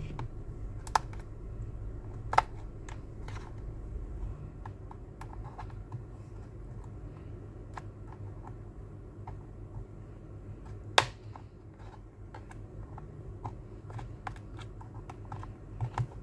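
A thin metal pry blade working along the edge of a Samsung Galaxy Tab S2's back cover, giving scattered small clicks and ticks with a few sharper snaps, the loudest about eleven seconds in, over a steady low hum.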